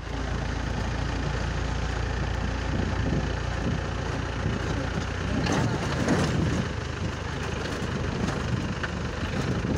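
Vehicle engine running, with a steady low hum that drops away a little under four seconds in.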